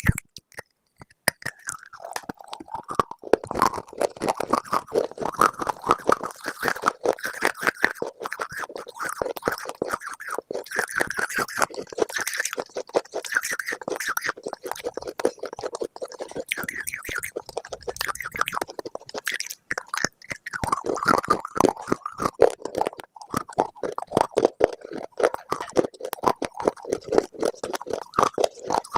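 Close-up crunching and chewing of something brittle: a dense, continuous run of crackles with a short lull about two-thirds of the way through.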